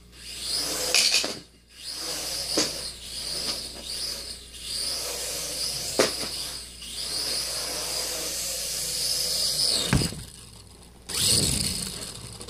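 Traxxas Alias mini quadcopter's motors and propellers whining, the pitch rising and falling with the throttle, with a few sharp knocks. A thump about ten seconds in, then close rustling and knocks near the end.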